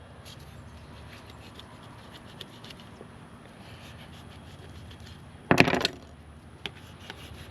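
Knife cutting and scraping through white bass as they are filleted by hand: faint scratching with small ticks, and one louder brief noise about five and a half seconds in.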